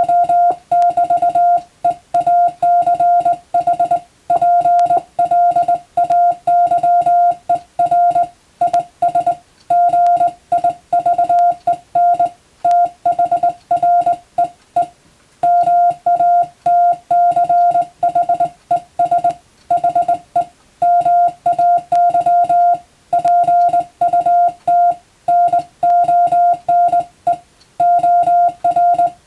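Morse code (CW) tone keyed on and off in dots and dashes at a steady sending speed. It is a single unchanging pitch with slightly longer gaps between words and a longer pause about halfway through.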